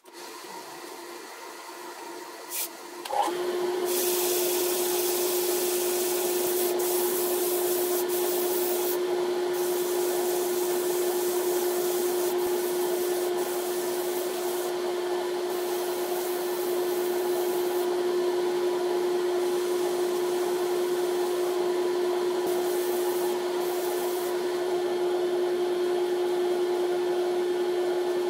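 Wood lathe running with a steady hum that gets louder and takes on a strong single tone about three seconds in. Over it comes the uneven hiss of sandpaper held against the spinning magnolia hollow form.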